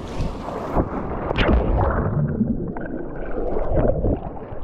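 A splash into the sea near the start, then muffled bubbling and gurgling heard underwater.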